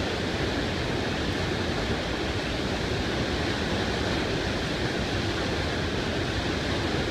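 Whitewater rapid rushing steadily: river water pouring over a rock ledge and churning below it, close by.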